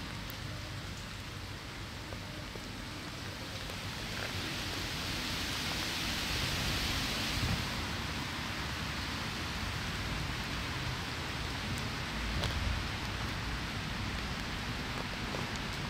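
Rain falling steadily, an even hiss that swells louder for a few seconds partway through.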